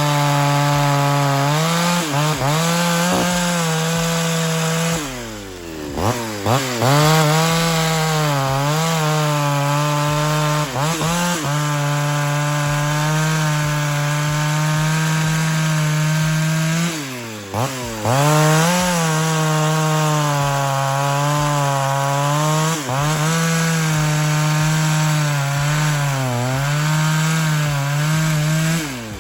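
Ported Pioneer 3270 two-stroke chainsaw running at full throttle through wood, its pitch sagging a little under each cut. Twice, about five seconds in and again about seventeen seconds in, it drops off throttle briefly and revs straight back up.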